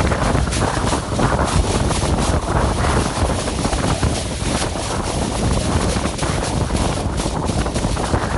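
Steady, loud rushing noise with a deep rumble underneath, without any clear tone or rhythm.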